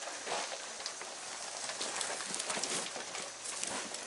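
A group of goats eating grain from feed trays: a steady patter of small crunches and clicks.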